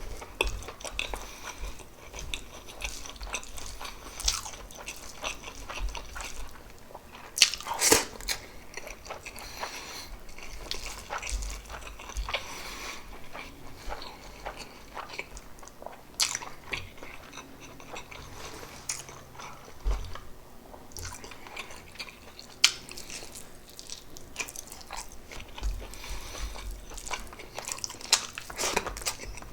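Close-miked eating sounds of pork adobo and rice being bitten and chewed: irregular wet mouth clicks and crunches, with a sharper one about eight seconds in.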